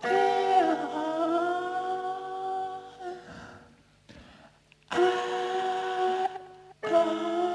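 Humming voices holding long notes in phrases a few seconds long, with a short, near-silent pause between them.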